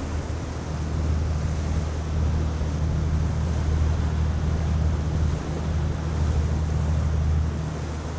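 A trawler's engine running steadily under way, a low constant drone, with wind and water noise over it.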